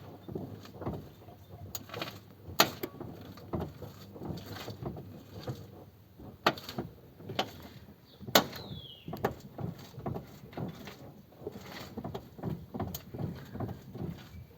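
Irregular clunks and knocks from the steering of a Renault Mégane Phase 1, a few much louder than the rest, with a short falling squeak after one of them. The owner suspects the steering box is moving in its mounting.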